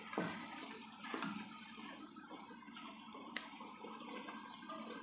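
Chicken and carrot strips simmering in soy sauce in a stone-coated wok, a steady bubbling hiss, with a wooden spoon stirring. There is one sharp click a little over three seconds in.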